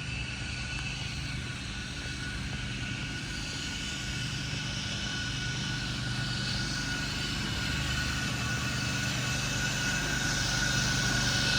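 Steady engine hum with a thin high whine, growing gradually louder as it draws nearer.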